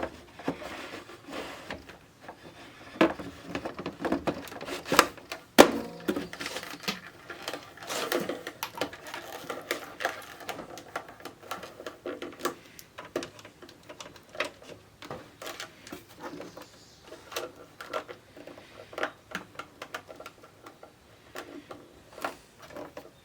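Irregular clicks, taps and knocks of small plastic and metal objects being handled and set down on a workbench, with a few louder knocks around the middle.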